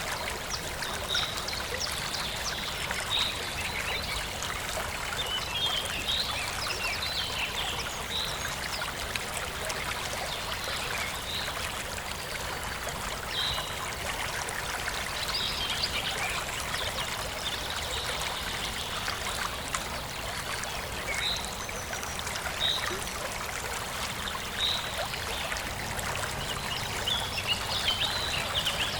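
Forest stream flowing and trickling steadily, with short high-pitched notes scattered every second or two over it.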